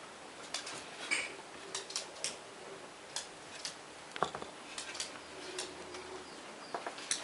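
Irregular light clicks and taps, a dozen or so spread unevenly, with a somewhat stronger knock a little past the middle.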